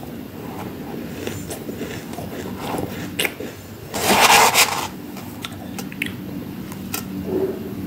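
Chewing a mouthful of freezer frost, with scattered small crunches. About four seconds in, a metal spoon digs into the tub of loose frost with a loud crunching scrape lasting under a second, the loudest sound here, followed by a few more small crunches.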